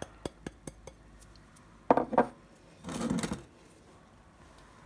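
Glass bowls knocking together as sugar is tipped from a small glass bowl into a glass bowl of semolina. Light taps come first, then two louder clinks about two seconds in, and a brief clatter about a second later.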